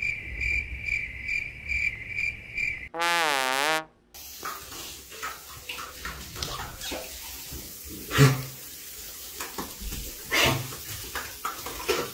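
Cricket chirping sound effect, pulsing about twice a second, then a short warbling tone that dips and rises. After that, the hiss of a running shower with a dog standing in the spray, with scattered clicks and two louder sharp sounds about eight and ten seconds in.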